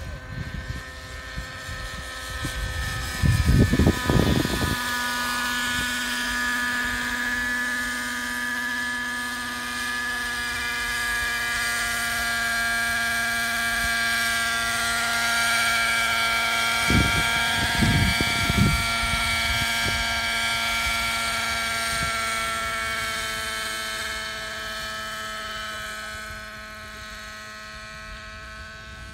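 Hirobo Freya model helicopter's engine and rotors running in flight: a steady whine with several pitched tones that bend slightly as it moves, louder in the middle as it flies close and fading as it climbs away. Two brief low rumbles of wind on the microphone, about four seconds in and again around seventeen to nineteen seconds.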